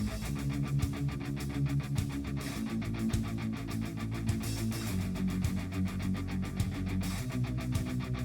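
Background music: a guitar-driven rock track with a fast, steady beat.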